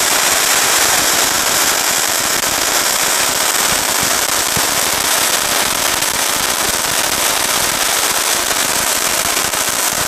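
A 'Power Point' Diwali firecracker tube lying on the ground, firing a jet of sparks with a continuous loud hiss and dense rapid crackling.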